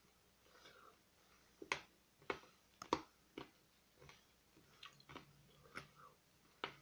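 Hard peppermint candy cane being bitten and crunched between the teeth close to the microphone: a string of sharp, irregularly spaced cracks, the loudest a little before the middle.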